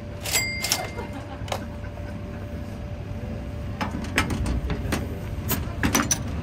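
Small glass soda bottle clinking against a vintage bottle vending machine, with a ringing clink about half a second in. Near the end come several sharp metal-on-glass clicks as the bottle's cap is fitted into the machine's built-in bottle opener.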